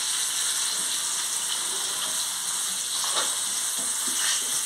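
Par-boiled breadfruit pieces frying in hot oil in a pan: a steady sizzling hiss.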